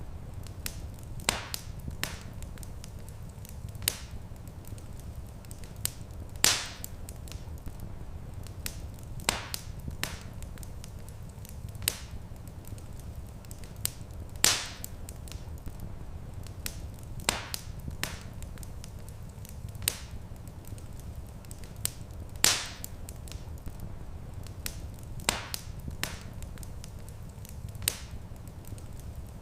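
Wood fire crackling in a fireplace: sharp pops and snaps every second or two, with a louder pop about every eight seconds, over a steady low rumble of burning.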